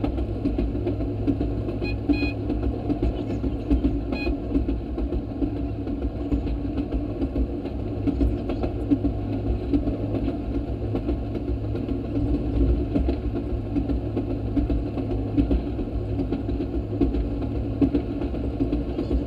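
Railroad speeder (track motorcar) running steadily along the rails, its small engine and wheels making a continuous low drone. Two brief high chirps come about two and four seconds in.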